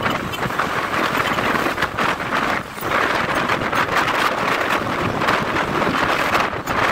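Wind rushing over the microphone of a moving Honda X-Blade motorcycle, mixed with road and engine noise. It drops off briefly a little under three seconds in.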